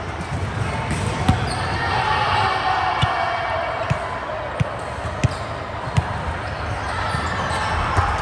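Volleyball being struck and bouncing on a hard indoor court: several sharp smacks at irregular intervals, with voices over the hall noise.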